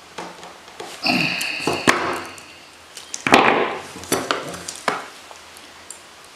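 Metal hand tools (pliers) clattering down onto a tabletop: a clatter with a brief metallic ring about a second in, a sharp click, a second louder clatter after about three seconds, then a few light clicks as the tools are handled.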